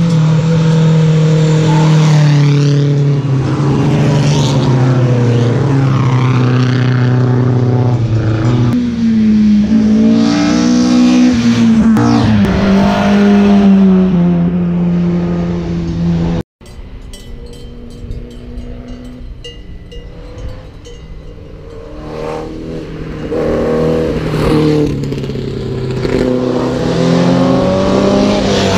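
Historic racing car engines at full throttle: a car revs hard and changes up through the gears as it climbs toward the listener. The engine sound breaks off suddenly about two-thirds of the way through, and engines come back quieter, revving and building up again near the end.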